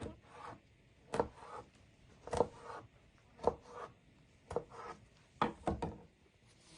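A series of sharp knocks of a utensil on a hard surface, about one a second, each with a short ring after it; the last two come close together near the end.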